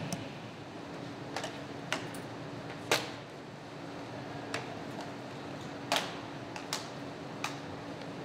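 Window slide tracks being handled and pressed into a window frame: a series of about eight sharp clicks and knocks, the loudest about three seconds in, over a faint steady hum.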